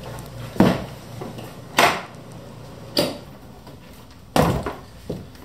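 Five knocks and bumps from a soft padded gun case being handled close up, about a second apart.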